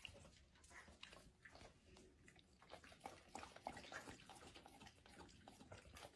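Faint wet licking and lip-smacking of a dog licking a soft-serve ice cream cone, a scatter of small smacks that bunch together around the middle.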